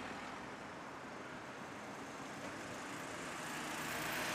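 Steady street traffic noise, an even hiss and rumble of passing vehicles, growing slightly louder near the end.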